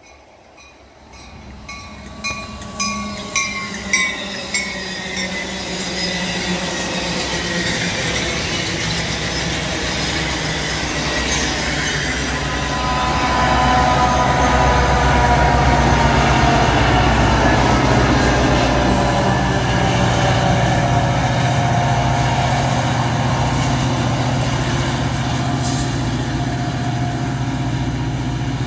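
Metra push-pull commuter train passing at speed: the bi-level coaches' wheels click over the rail joints a few seconds in, then the two diesel locomotives pushing at the rear go by with a loud rumble and engine drone, the loudest part, while whining tones slowly fall in pitch.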